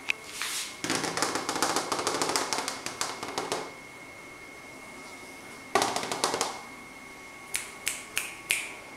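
Thin plastic bag crinkling and rustling as a cat paws and noses at it: a burst of about three seconds, a shorter one, then a few separate sharp crackles near the end.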